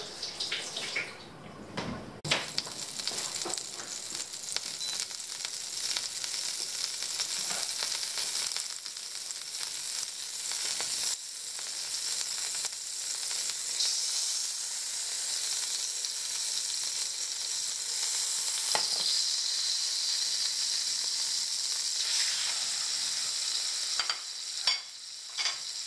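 Butter sizzling in a hot frying pan as floured mackerel fillets are laid in to pan-fry: a steady high hiss, with a few light knocks.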